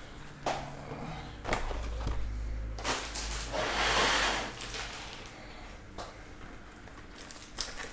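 A few light knocks and taps as shrink-wrapped trading-card hobby boxes are handled and set down in a stack on a table, with a short rustle about four seconds in.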